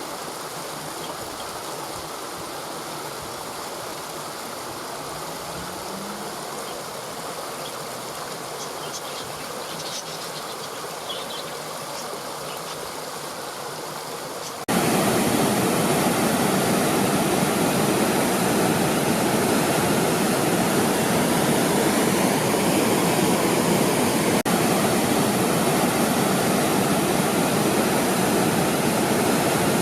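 Waterfall water rushing in a steady, even roar. About halfway through it abruptly becomes much louder and fuller, as if from closer to the falls.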